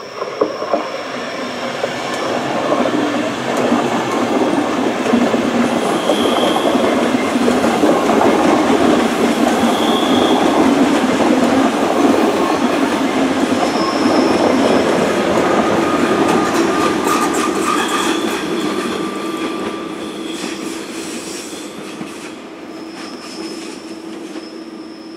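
ÖBB Railjet electric passenger train rolling past on a curved line, its wheels clattering over the rails with several short, high-pitched squeals. The sound builds to its loudest in the middle, then fades as the train draws away.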